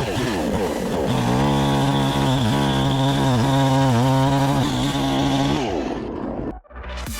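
NEO-TEC NH872 71cc two-stroke chainsaw (a Husqvarna 372 XP clone) running at high revs through a log, its pitch dipping again and again as the chain loads up in the cut, then winding down near the end. After a sudden break, electronic dance music with a steady beat starts.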